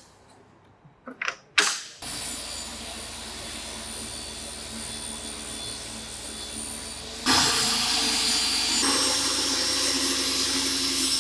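Handheld electric planer's motor running steadily with a high whine, starting about two seconds in after a few short clicks and growing louder about seven seconds in.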